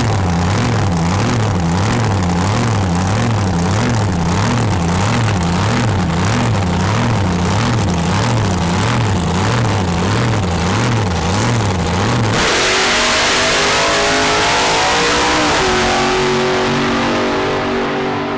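Supercharged drag-racing V8 idling on the start line with a rhythmic lope, about two swells a second. About twelve seconds in it launches at full throttle, a sudden loud blast that fades as the car runs away down the track, with music coming in near the end.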